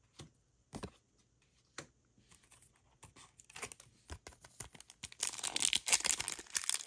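A few light clicks of cards being handled, then a foil trading-card booster pack wrapper crinkling and tearing open, starting about three seconds in and getting louder toward the end.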